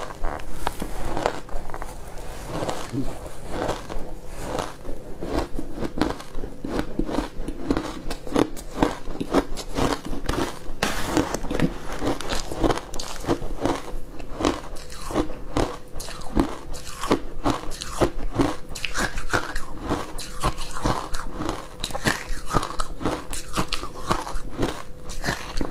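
Close-miked crunching and chewing of ice cubes dusted with milk powder: a dense, irregular run of sharp crunches, several a second, with no pause.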